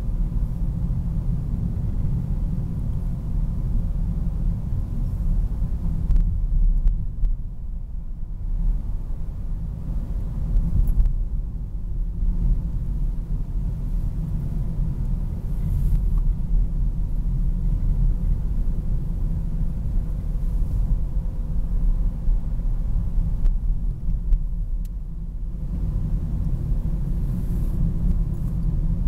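Mazda Demio XD's 1.5-litre diesel engine and road noise heard inside the moving car's cabin as a steady low rumble, easing off briefly a few times.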